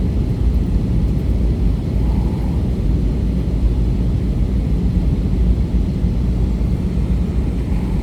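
Steady low rumble of an airliner cabin in flight: engine and airflow noise heard from inside the plane.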